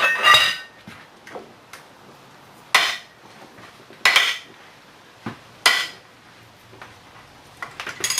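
Steel socket wrench and cheater pipe clanking against each other and the bearing cap bolts: about five sharp metal clinks, each ringing briefly, spread over several seconds.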